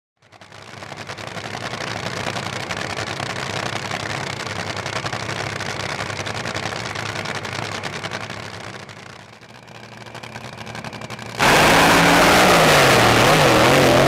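Drag boat racing engine running with a rough, rapidly pulsing rumble that fades somewhat around nine to ten seconds in, then a sudden, much louder full-throttle launch about eleven seconds in, the engine note wavering in pitch as the boat accelerates.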